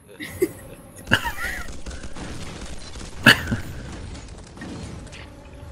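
Action-film soundtrack: two sharp crashing impacts, about a second in and just past three seconds, over a low rumble.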